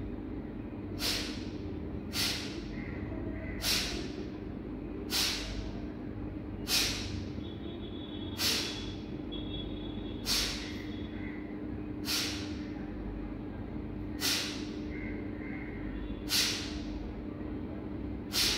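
Kapalbhati pranayama breathing: about a dozen short, forceful exhalations through the nose, each a sharp hiss, spaced one to two seconds apart and slowing slightly, with a steady low hum underneath.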